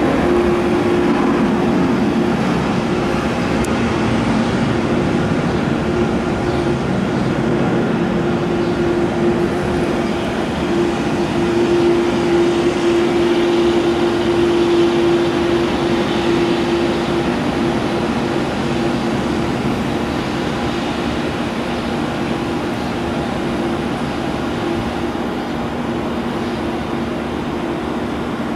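Boeing 787-8 Dreamliner's jet engines at taxi idle as the airliner taxis past: a steady drone with a held low tone, loudest about halfway through and easing off slightly toward the end.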